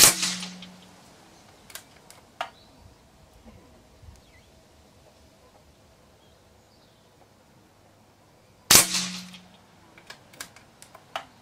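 Two shots from a .30-calibre Daystate pre-charged pneumatic air rifle, one at the start and one about nine seconds in, each a loud sharp crack that dies away over about a second. Lighter clicks follow each shot.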